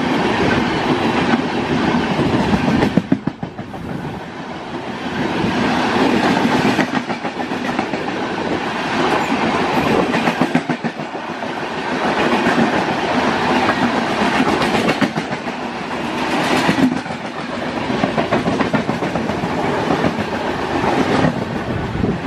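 Express train coaches rushing past at close range, their wheels clattering over the rail joints in a rapid, steady clickety-clack, with the loudness dipping briefly twice.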